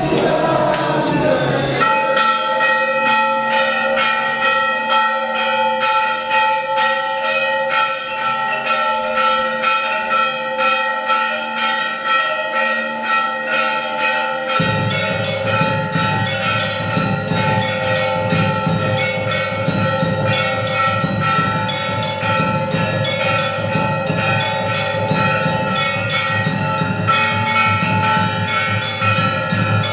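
Hindu temple bells rung continuously in rapid strokes, a dense, loud ringing of several overlapping tones. About halfway through, a low rumble joins the ringing.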